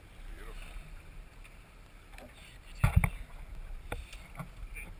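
A few heavy thumps about three seconds in, then a lighter knock a second later, as a landed jack crevalle is handled on a small boat's deck, over steady wind and sea hiss.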